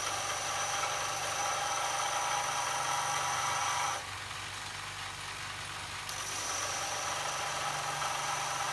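Bench grinder running with a steady motor hum as the end of a bar of tool steel is ground flat against it. The grinding noise and high whine drop out for about two seconds midway, then resume.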